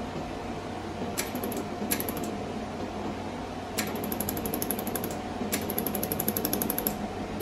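SuperbMelt mini jewelry laser welder firing pulses into steel screws: rapid trains of sharp, evenly spaced ticks, two short bursts and then two longer runs while the foot pedal is held down for continuous welding. A steady machine hum runs underneath.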